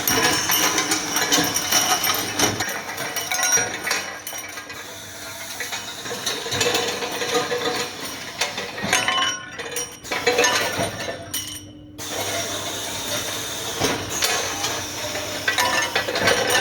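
Automatic pipe chamfering machine at work, with continuous metallic clinking and clattering of steel parts. The noise dips briefly about two-thirds of the way through, then carries on.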